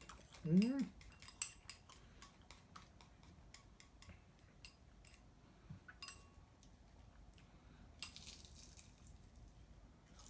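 Eating utensils clicking and scraping against a bowl of rice, with a short hummed "mm" about half a second in and a brief hiss of slurping or breath about eight seconds in.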